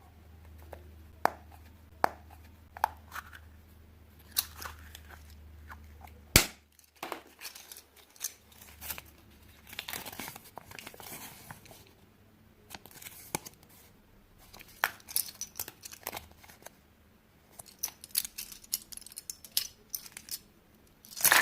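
A chocolate egg's wrapper being unwrapped, crinkling and tearing, with scattered sharp clicks and taps. There is a longer crinkle about halfway through and a quick run of clicks near the end.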